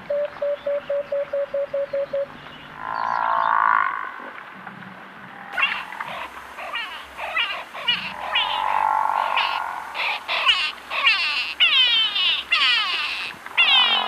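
Bushveld wildlife calls: a single call pulsing about five times a second for the first two seconds, then, after an abrupt change about five and a half seconds in, a busy chorus of many quick, repeated descending calls.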